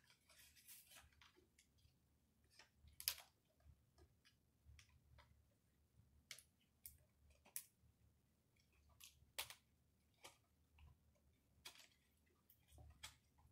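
Faint, scattered clicks and crackles of stiff plastic packaging being pried and pulled at by hand, with a couple of sharper snaps, one about three seconds in and one about nine seconds in.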